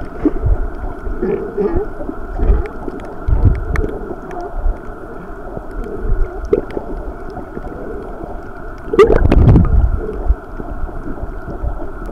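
Muffled underwater sound picked up by a camera held below the surface: sloshing and gurgling water with a low rumble, and a louder surge about nine seconds in.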